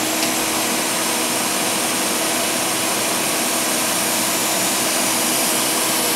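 Figure-skate sharpener's small grinding wheel running, with a steady motor hum and an even grinding hiss as the skate blade is drawn across the wheel and sparks fly. This is the final sharpening pass, which transfers the wheel's dressed radius of hollow onto the blade.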